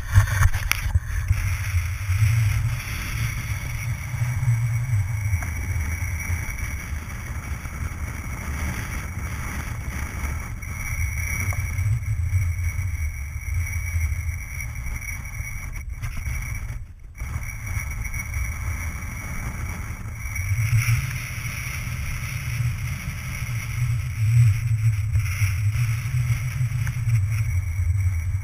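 Wind buffeting the microphone: a low rumble that swells and eases in gusts every few seconds, with a brief drop about two-thirds of the way through.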